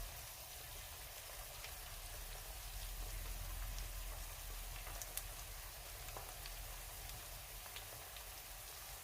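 Pork chops frying in hot oil in a pan: a steady sizzle with a few small pops and crackles scattered through it.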